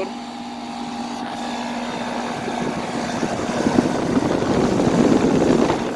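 A 1999 Carrier 38CKC 4-ton air conditioner's outdoor unit running: a steady compressor hum with a constant tone under the rushing of the condenser fan, growing louder and rougher from about halfway through. The compressor sounds strained, which the owner takes for overheating.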